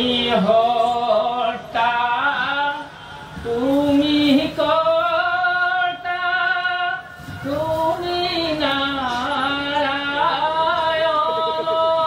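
A singer performing a slow bhaona song, drawing out long wavering notes across several phrases with short breaks between them, the pitch sliding up into each new phrase.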